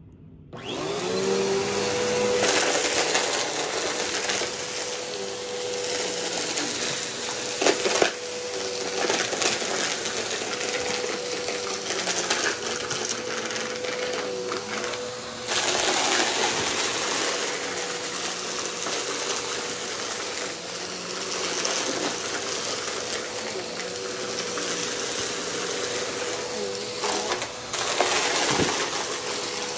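Upright bagless vacuum cleaner running with a steady motor whine while its floor head sucks up a pile of glittery grit and small hard bits, which crackle, rattle and crunch through the nozzle.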